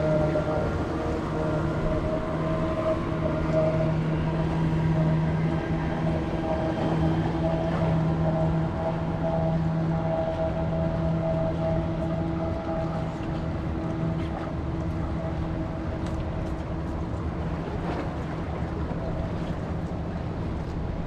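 Motor of a small open fishing boat running steadily as it passes, a low drone that slowly fades as the boat moves away.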